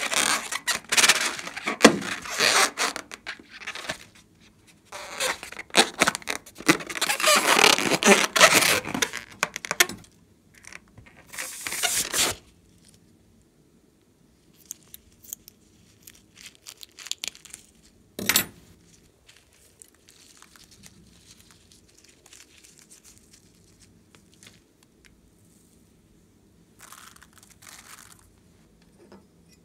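A rubber balloon rubbed and squeezed between hands, loud crackly rubbing in stretches for the first twelve seconds or so. After that it is much quieter, with one sharp snip of scissors a little past halfway.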